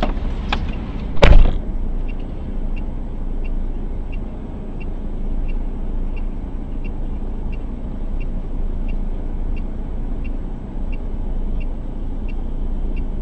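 A car door opens with a loud clunk about a second in. Then the car's door-open warning chime beeps steadily, about one and a half beeps a second, over a steady low rumble.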